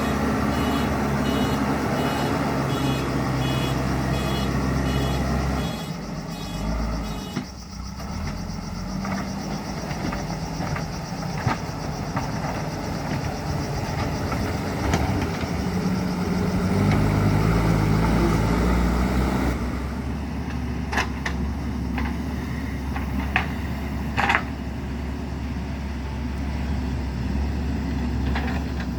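JCB 3DX Super backhoe loader's diesel engine running, with its reversing alarm beeping steadily for the first several seconds. The engine note drops about six seconds in and rises again a little past the middle, and several sharp clanks follow near the end.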